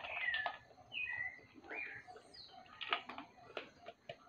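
A bird chirping: a string of short calls that bend down and up in pitch, over the first two seconds. Then a run of sharp clicks near the end, in step with the popcorn being eaten from the bowls.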